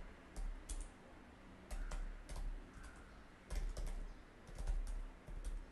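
Computer keyboard being typed on, keystrokes clicking in short bursts with brief pauses between them.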